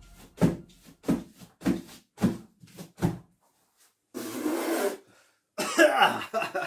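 A man coughing over and over, about two coughs a second, then a longer rasping hack about four seconds in and a few more coughs near the end.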